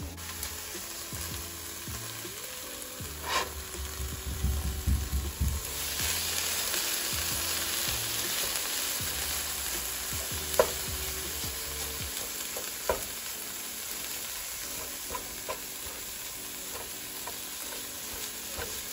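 Ground ostrich meat sizzling in a nonstick frying pan while a spatula breaks it up and stirs it, with a few sharp clicks of the spatula against the pan.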